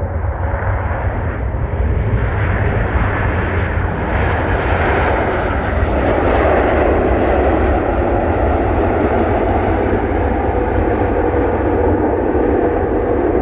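Jet engines of an Airbus A330-200 on its landing rollout, with wing spoilers raised: a loud, continuous rushing roar that builds over the first few seconds and stays at its loudest through the second half, over a steady low rumble.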